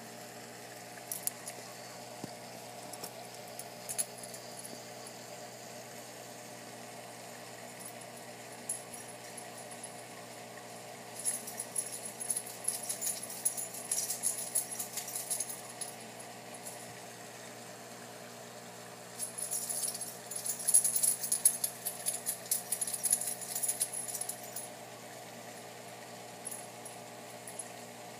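A steady, even mechanical hum. Twice, from about eleven seconds in and again around twenty seconds in, it is overlaid for several seconds by a fine, high-pitched crackling rattle of rapid ticks.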